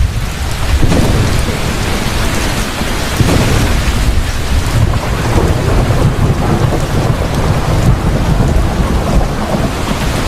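Heavy rain falling steadily, with thunder rumbling low underneath and swelling a few times.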